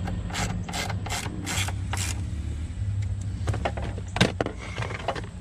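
A ratchet wrench tightening a Jeep Wrangler JL door hinge bolt: about five quick ratcheting strokes in the first two seconds, then a few sharp clicks and a knock near the end, over a steady low hum.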